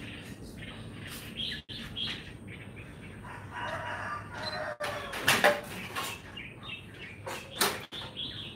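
A rooster crows once, about three and a half seconds in, with a few short chirps. Sharp clicks and knocks come about five and seven and a half seconds in, and these are the loudest sounds.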